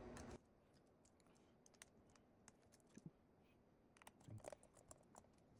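Near silence, with faint scattered small clicks and taps of hands and a screwdriver handling a laptop LCD panel and its screws, bunched together about four seconds in. Room noise cuts off abruptly right at the start.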